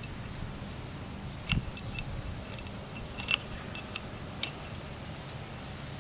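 Light metallic clicks and clinks of small clutch parts and washers being handled and slid off a dirt bike's clutch shaft. There are several separate clicks, the loudest about a second and a half and about three seconds in, over a faint steady hum.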